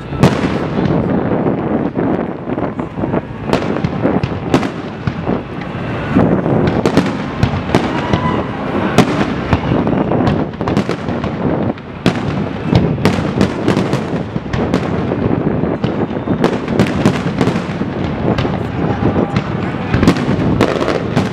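Fireworks display: aerial shells bursting in quick succession, a dense, unbroken run of bangs and crackles over a continuous rumble.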